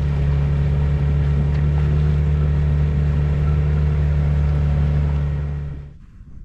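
Small outboard motor on an inflatable boat running at a steady speed, then shut off about six seconds in.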